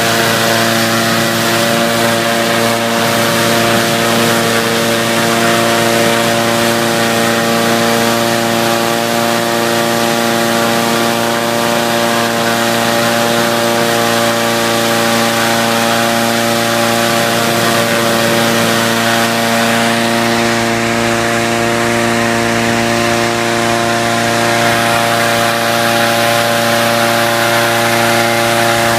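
Petrol-engined balloon inflator fan running steadily at full speed, a constant engine note that does not change, while the propane burner fires flame into the envelope during hot inflation.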